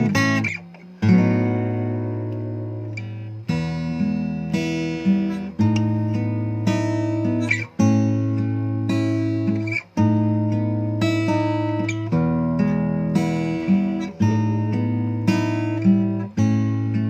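Takamine ED05SC-NS acoustic guitar playing a slow chord progression. Each chord is struck sharply and left to ring for one to two seconds before the next, over a sustained bass note.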